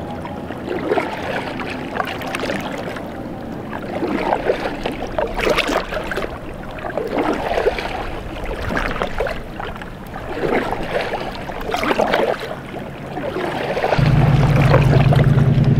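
Paddle blades dipping and splashing in river water, roughly one stroke every second, as a paddleboard is paddled along. Near the end a steady low hum of a car driving takes over and becomes the loudest sound.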